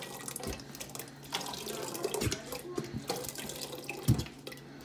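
Thick tomato pasta sauce pouring from a large upturned jar into a stainless steel stockpot, glugging out in irregular wet plops, the loudest about four seconds in.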